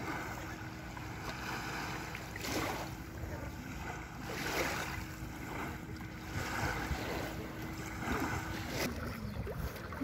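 Small sea waves lapping and washing up onto a sandy shore, swelling and falling about every two seconds.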